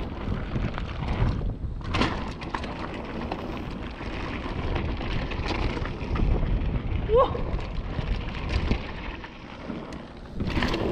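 Mountain bike descending a loose dirt and gravel trail: tyres crunching over stones and the bike rattling and clattering over the bumps, heard close up from an action camera on the rider. A brief high squeak about seven seconds in.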